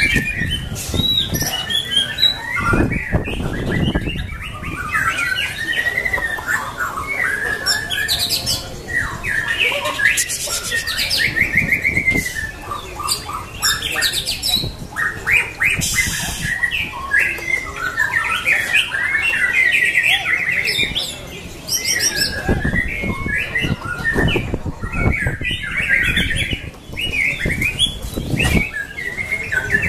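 White-rumped shama singing a long, unbroken run of varied warbling phrases, with fast trills now and then.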